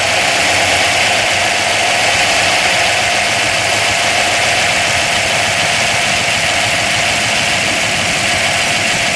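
A 1962 Plymouth's 413 cubic-inch wedge V8 with twin carburettors, idling steadily just after being started. It has the light valve-train ticking of a solid-lifter engine.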